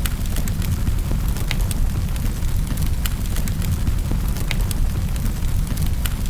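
Fireplace fire crackling: a steady low rumble with sharp pops about once a second.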